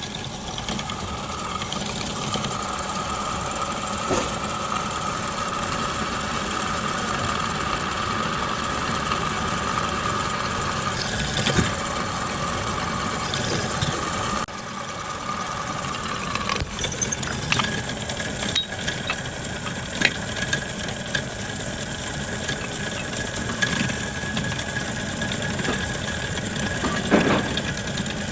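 Lathe machine running steadily with a whine that steps up in pitch about halfway through, and a few sharp metallic knocks.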